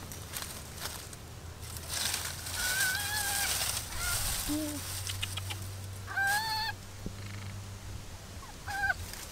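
A bird calling three times in drawn-out, pitched notes: a long call a few seconds in, a shorter one after, and a brief one near the end, over some rustling.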